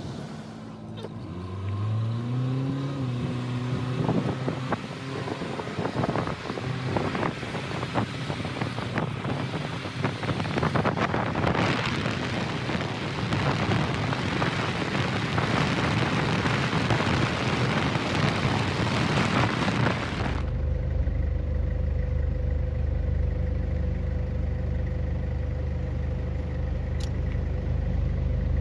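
Vehicle noise: a brief rising engine note, then a long loud rushing noise with scattered clicks. About two-thirds of the way through it cuts suddenly to a steady low engine hum.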